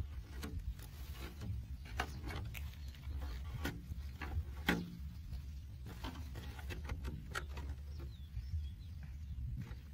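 Irregular light taps and clicks of hands and watermelon pieces knocking against a clear plastic jar as the bait is set inside, over a steady low rumble.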